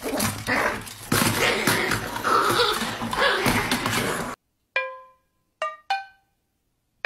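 A puppy and a kitten scuffling, with dog-like noises, for about four seconds until it cuts off suddenly. Then a few single plucked notes of a light pizzicato-style tune sound one at a time, with gaps between them.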